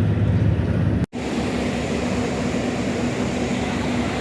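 Steady low vehicle rumble that cuts out abruptly about a second in, followed by a steady, hissier noise with less low rumble.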